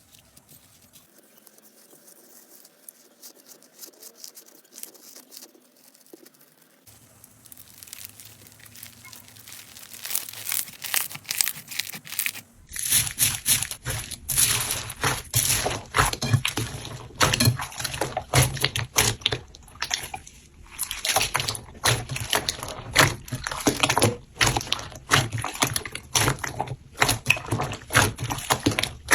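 Slime being squeezed and poked by hand, with dense crackling pops and squelches. It is faint and sparse at first, then turns much louder and denser about halfway through.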